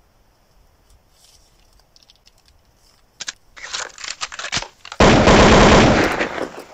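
Gunfire sound effect: a few scattered shots about three seconds in, then a loud, rapid burst of automatic fire that starts abruptly about five seconds in and stops just before the end.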